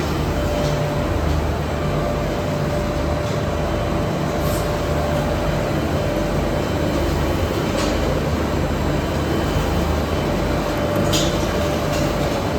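Double-drum continuous carbonization furnace running: a steady mechanical drone with a constant whine and a few faint ticks.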